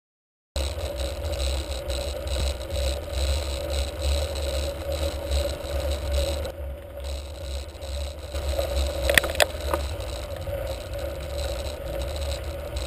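Wind rumbling on a GoPro camera's microphone during a mountain bike ride on a paved road, with the bike's tyre noise and rattle, starting abruptly about half a second in. A couple of sharp clicks come about nine seconds in.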